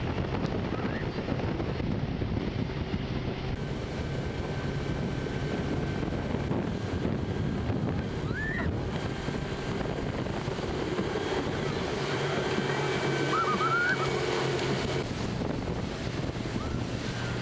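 Motorboat engine running steadily under way while towing, with water rushing and churning in the wake and wind buffeting the microphone.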